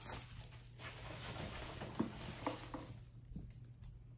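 Thin packaging wrap rustling and crinkling as it is handled and pulled off, dying down about three seconds in and leaving a few light clicks.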